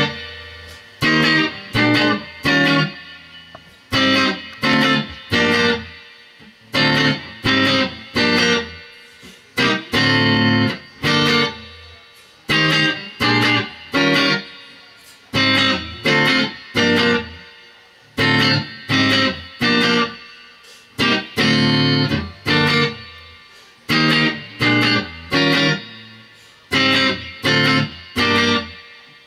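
Stratocaster-style electric guitar playing short phrases of two or three strummed chord stabs. Each chord rings and dies away, with brief pauses between phrases.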